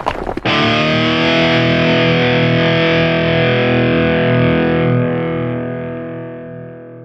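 Background music: a dense, noisy electronic passage cuts off about half a second in, and a single distorted electric guitar chord rings on, fading slowly.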